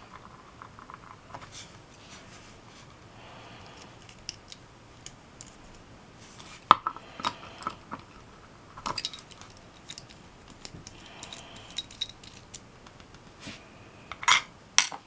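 Scattered light metallic clicks and taps as a brass lock cylinder is taken apart by hand with a thin steel tool, with one sharp click near the middle and two more near the end.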